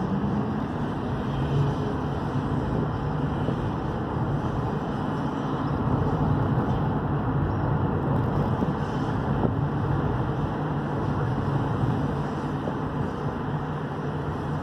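A moving road vehicle's engine running steadily with tyre and road noise, heard from inside the cabin.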